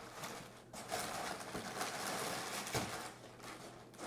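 A cardboard box being handled and tipped, with small potato chip bags crinkling and shifting inside it, and a couple of knocks against the cardboard.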